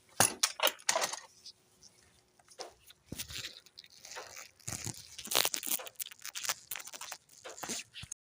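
Irregular metallic clicks, knocks and scrapes of drum-brake return springs and shoes being worked off with pliers and hand tools.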